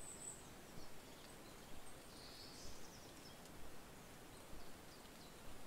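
Faint outdoor ambience bed with a few soft, scattered high bird chirps.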